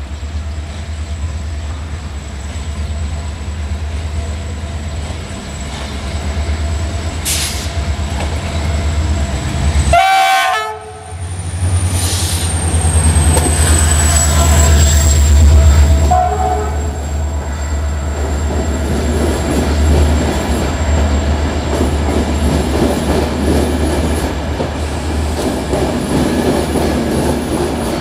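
Diesel-electric locomotive hauling a passenger train approaches and passes underneath, its engine running with a deep steady drone. It gives a short horn blast about ten seconds in, and the engine is loudest just after that. In the second half the coaches roll past with wheel clatter.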